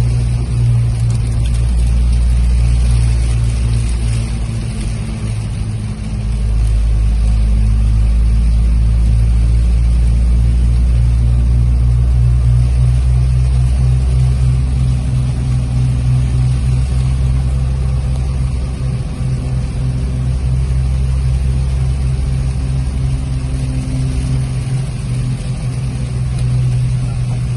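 Toyota Land Cruiser 80-series running on the move: a steady low engine and road drone, easing briefly a few seconds in before picking up again.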